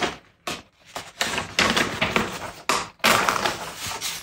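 Sheets of drawing paper rustling as they are handled and lifted off a table, in several irregular rustles with short pauses between them.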